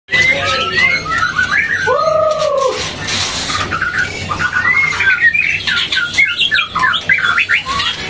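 Several caged songbirds chirping and whistling in quick, overlapping phrases, with one longer, lower arched call about two seconds in.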